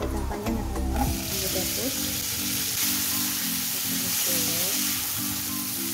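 Long beans sizzling in hot oil and ground chilli paste in a wok as they are stir-fried with a spatula; the sizzle swells about a second in, when the beans hit the oil. Background music plays underneath.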